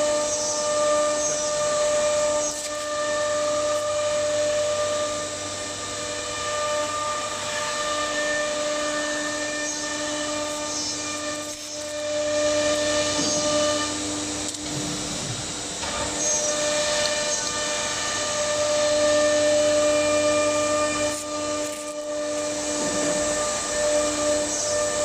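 Stylecnc S4 nesting CNC router's spindle running with a steady high-pitched whine while milling a wood panel. The whine swells and fades in places as the cutter moves.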